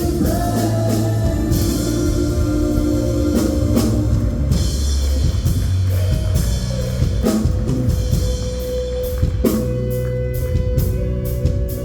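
Live worship band playing an instrumental passage with no singing: a drum kit with repeated cymbal and drum hits, and guitar, over a held low bass. The drum hits come closer together near the end.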